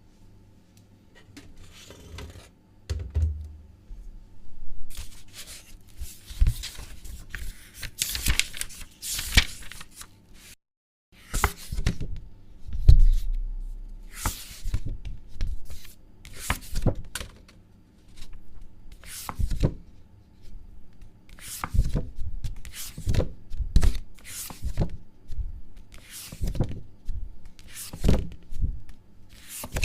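Paper being handled close up: a long irregular series of short rustles and tears, with a low thud about three seconds in and another about thirteen seconds in. The sound stops dead for half a second near the middle.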